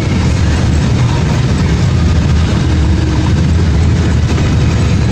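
Steady engine and road rumble heard from inside the cabin of a moving vehicle travelling along a road.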